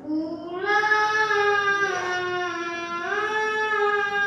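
A single voice chanting in long, drawn-out melodic notes, its pitch rising into a new phrase about half a second in and again about three seconds in: melodic Qur'an recitation.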